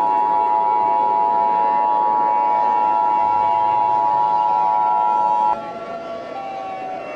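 Emergency Alert System two-tone attention signal sounding together with a civil defense siren. The steady attention tone cuts off about five and a half seconds in, leaving the siren quieter.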